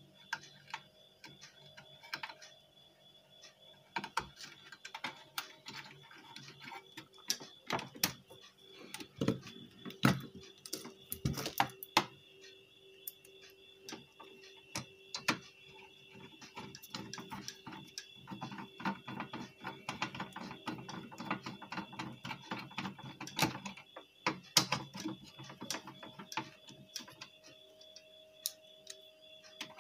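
Irregular clicks, taps and rattles from hands handling wires, connectors and metal parts inside an open inverter as it is reassembled, with the sharpest knocks bunched about a third of the way in and again near the end.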